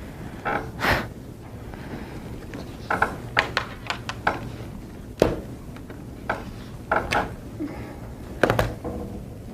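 Scattered light knocks and clicks of objects being handled, with a sharper knock about five seconds in and another near the end.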